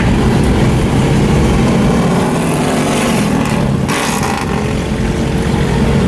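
Motorcycle engines rumbling on the road around the car, heard from inside the car's cabin over the car's own road noise. A brief rushing hiss comes about four seconds in.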